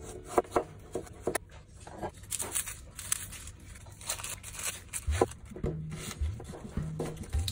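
Kitchen knife knocking sharply against a plastic cutting board as fresh ginger is sliced into thin strips, followed by the dry crackle of onion skin being torn off and more knife strokes into the onion. Low background music comes back in about five seconds in.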